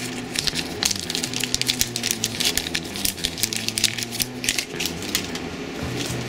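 Rapid, irregular crackling and rattling of plastic packaging being handled, stopping about five seconds in, over background music with a low bass line.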